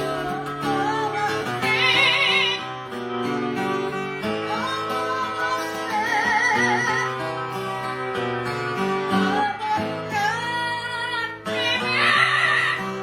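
Music: a strummed acoustic guitar with a voice singing long, wavering notes.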